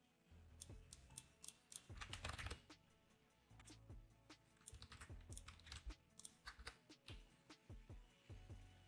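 Typing on a computer keyboard: quiet, irregular key clicks, with a quick flurry of keystrokes about two seconds in.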